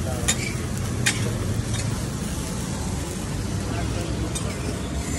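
Metal spatula scraping and knocking on a flat dosa griddle as the dosa cooks, with two sharp clicks in the first second, over a steady low rumble.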